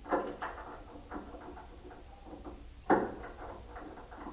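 Metal clanks and clicks as a wrench works on the bandsaw's lower blade guide under the table: two sharp knocks at the start and a louder one about three seconds in, each ringing briefly, with lighter clicks between.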